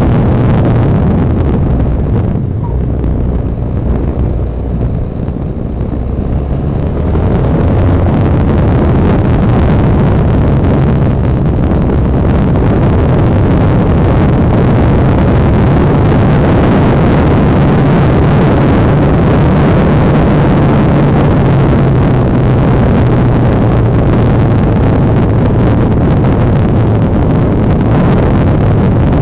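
Honda Dominator NX650's single-cylinder four-stroke engine running under way, with wind over the machine. The engine note drops and goes quieter about two seconds in, then comes back up around seven seconds and runs steadily.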